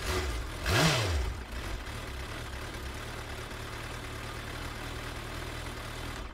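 Intro sound effect: a loud swell about a second in whose pitch rises and then falls, followed by a steady low rumble that cuts off suddenly at the end.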